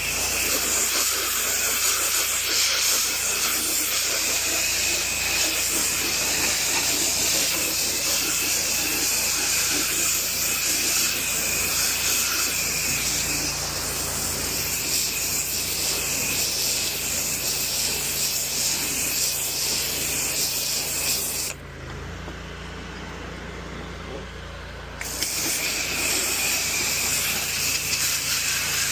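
Pressure washer spraying: a steady, loud hiss of the high-pressure water jet over the steady low hum of the machine. The spray stops for about three seconds a little past two-thirds of the way through, leaving only the hum, then starts again.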